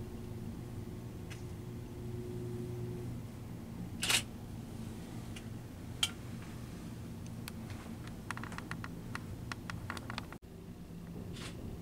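Camcorder handling and zoom-motor noise over a low steady hum: a faint whine, then a short rustle about four seconds in, a sharp click about six seconds in, and a run of faint clicks near the end.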